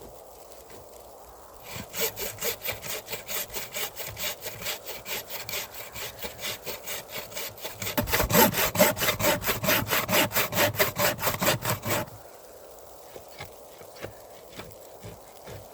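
Hand saw cutting through wood in quick, even back-and-forth strokes, about four a second. The strokes get louder about halfway through and then stop suddenly.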